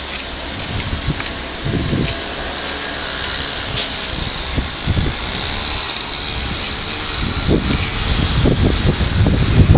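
Wind buffeting the microphone in gusts over a steady rushing hiss; the gusts grow stronger near the end.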